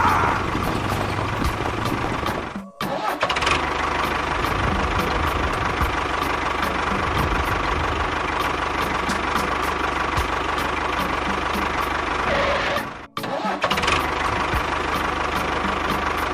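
A small motor running steadily with a high, even whine and regular faint ticking, cutting out briefly twice.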